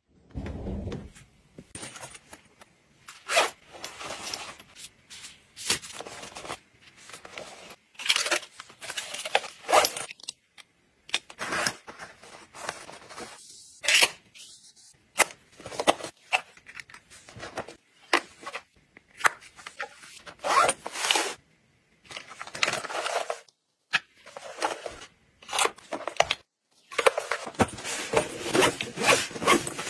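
Close handling noises of packing: cosmetic cases and fabric and mesh toiletry pouches being picked up, rustled and set down, with short scrapes and clicks in irregular bursts.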